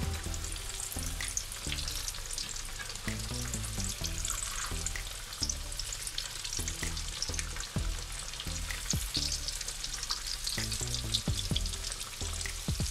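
Breadcrumbed barracuda fillets frying in plenty of hot sunflower oil, a steady crackling sizzle. A few sharp clicks from the fork and spatula against the pan come in the second half, as the fillets are turned.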